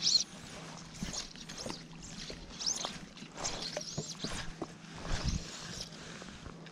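Fly line swishing through the air in repeated casting strokes about a second apart, along with small clicks and water lapping against the float tube.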